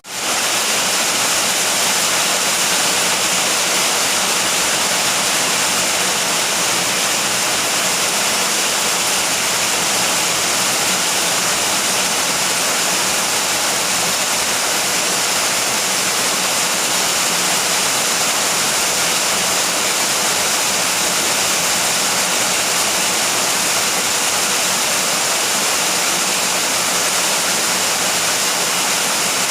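Steady rain falling: an even, unbroken hiss of rainfall with no thunder, briefly dropping out at the very start before returning to full level.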